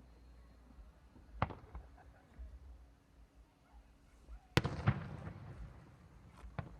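Fireworks shells bursting overhead in separate sharp bangs, each trailing off in a short rumble: one about a second and a half in, a louder pair in quick succession near five seconds, and a smaller bang near the end.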